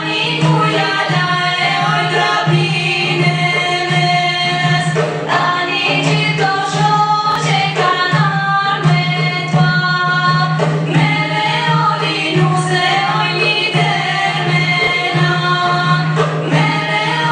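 Albanian folk music: a group of voices singing together over a steady low drone that is held almost throughout.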